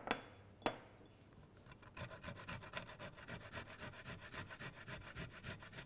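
Garlic being grated on a hand grater: two single strokes, then from about two seconds in a fast, even run of rasping strokes.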